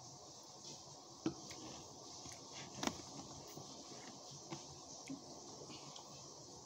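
Quiet eating sounds: a few light clicks of a metal utensil against a ceramic bowl, the two sharpest about a second and three seconds in, over a faint steady hiss.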